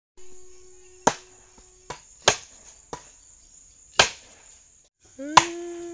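Heavy wooden mallet pounding down on the top of a bamboo post, driving it into an earth bank: four loud thuds a second or more apart, with a couple of lighter knocks between them.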